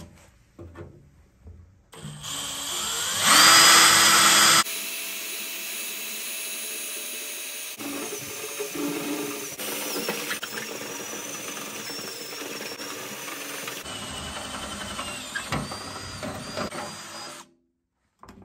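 Cordless drill with a brass step bit boring through the sheet-steel wall of an ammo can. After a few short starts, the motor speeds up to a loud whine about three seconds in and runs on steadily under load, stopping about a second before the end.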